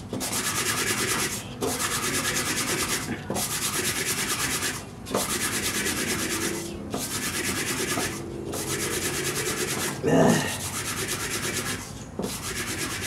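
A dirty engine valve being scrubbed clean by hand, rubbing in repeated spells of about one and a half seconds with short pauses between them, and a single louder knock about ten seconds in.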